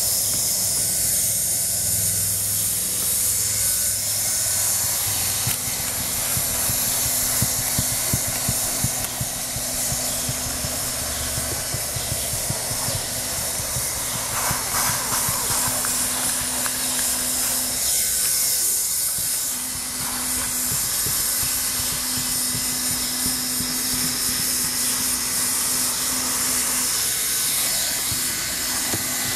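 Handheld hot-air plastic welding gun blowing a steady hiss of hot air while heat-welding TPO roofing membrane.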